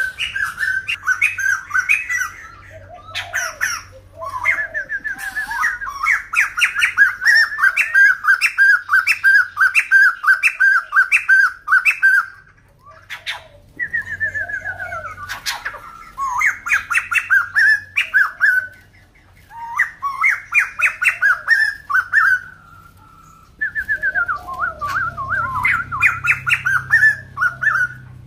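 White-crested laughingthrush singing: loud bouts of rapid, repeated notes, each bout lasting a few seconds with brief pauses between.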